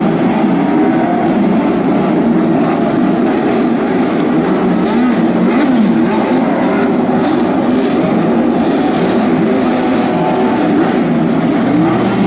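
Several historic Grand Prix racing car engines running together, their pitch rising and falling as they are revved.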